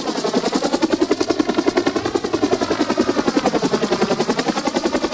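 Bell UH-1 'Huey' helicopter hovering just above the ground at close range: loud, even rotor-blade beating at about ten beats a second, with a whooshing that sweeps down and up in pitch twice.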